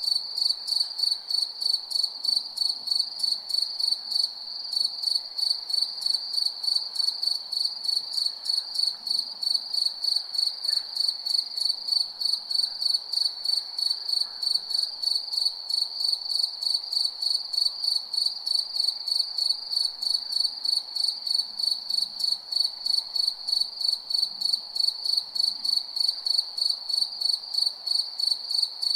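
Cricket chirping steadily at night in an even, high-pitched rhythm of about three chirps a second, over a faint background hum of night insects.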